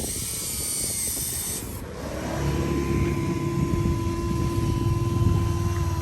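A machine engine running, joined about two seconds in by a steady high whine that holds to the end over a low rumble.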